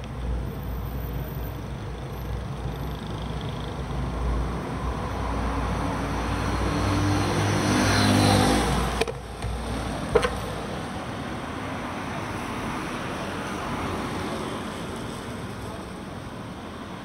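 Road traffic heard from a moving bicycle: a motor vehicle's engine grows louder and passes about eight seconds in, over low wind rumble on the microphone. The rumble stops about ten seconds in, with a sharp click, leaving a quieter steady road hiss.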